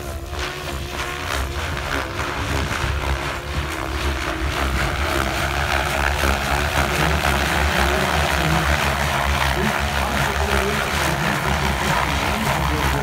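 SAB Goblin Black Thunder T-Line electric RC helicopter flying 3D aerobatics. Its 690 mm rotor blades give a low throb and a rushing whoosh, which grow louder over the first several seconds and then hold steady.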